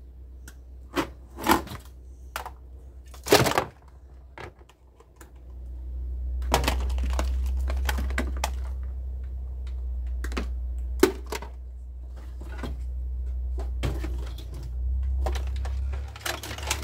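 Plastic appliances and cables clattering and knocking as they are handled and shifted about in a car boot full of scrap electrical items: irregular clicks and knocks, loudest about three seconds in. A steady low rumble runs under the middle part.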